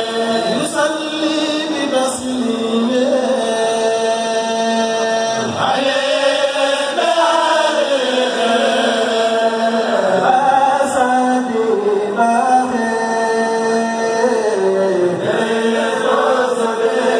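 Kourel of Mouride men chanting a khassida (Sufi devotional poem) in chorus through microphones: a steady held note under a melodic line that glides up and down.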